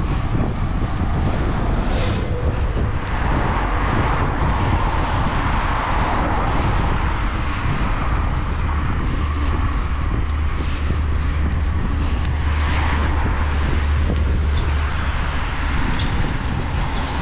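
Steady wind rumble on the microphone with road noise, from a camera carried on a moving bicycle.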